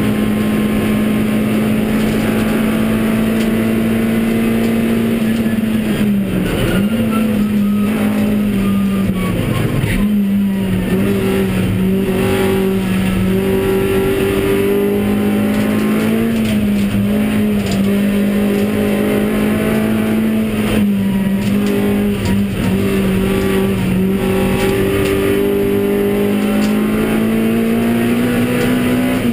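Honda Civic Type R EP3's 2.0-litre four-cylinder engine heard from inside the cabin, running hard at high revs. Its pitch climbs slowly and dips briefly several times.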